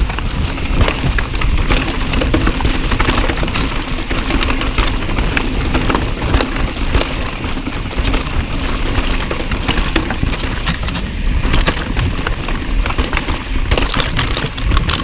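Mountain bike riding fast over a rough dirt trail: wind buffets the microphone with a steady low rumble, over tyre noise and frequent sharp clatters from the bike over rough ground.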